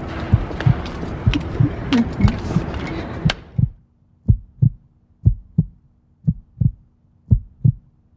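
Heartbeat sound effect: paired low thumps, lub-dub, about once a second. Outdoor background noise runs under it at first and cuts off about three and a half seconds in, leaving the heartbeat alone over a faint steady hum.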